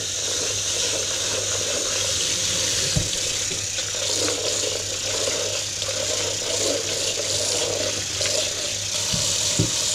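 Water running and splashing into a kitchen sink as tinned chickpeas drain in a colander, with a few light knocks about three seconds in and near the end.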